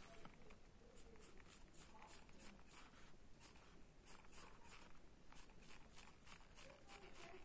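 Mechanical pencil lead scratching on paper in short repeated strokes, about two a second, faint.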